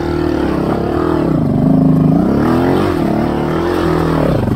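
Honda XR250 dirt bike's single-cylinder four-stroke engine running under way, its pitch rising and falling several times as the throttle is opened and closed.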